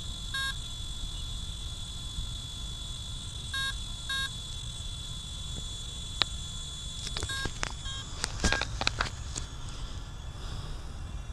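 Short electronic beeps, a few seconds apart, from the radio-control gear of an Align T-Rex 550E electric helicopter. Several sharp clicks and knocks follow in the second half as the model is handled.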